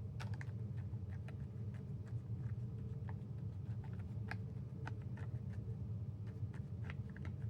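Loose Cherry MX Ergo Clear keyboard switches being handled and counted out, giving scattered light plastic clicks and taps at an uneven pace over a low steady hum.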